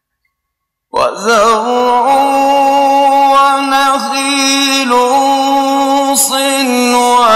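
Silence for about a second, then a man begins chanting Quran recitation in long, held melodic phrases, the voice sustained on one pitch and ornamented with wavering turns, with only brief breaks.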